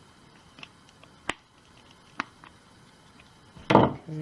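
Small metal parts of a drill buffing arbor being tightened with a screwdriver: a few sharp, spaced ticks and clicks, then a louder short clatter near the end.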